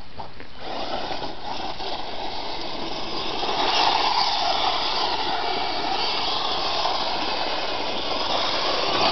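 Traxxas 1/16 E-Revo VXL radio-controlled truck driving fast on loose dirt: its brushless electric motor and gears whine over the hiss of the tyres. It starts about half a second in and gets louder from about three and a half seconds.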